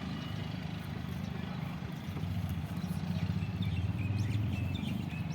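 An engine running steadily with a low rumble, with a few faint high chirps in the second half.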